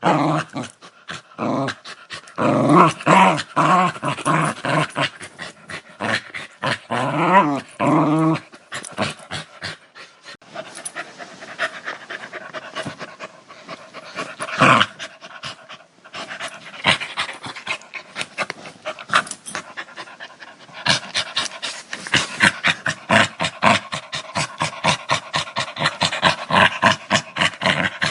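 A dog growling in rough, rapid pulses. During the first eight seconds the growl is more voiced, with its pitch bending up and down. Near the end it becomes a denser, more even rattle.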